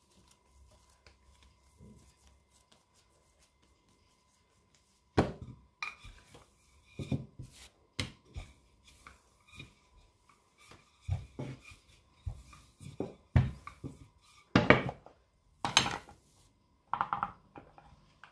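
Irregular soft knocks and taps of meat pie pastry being shaped by hand and set into a baking pan, beginning about five seconds in.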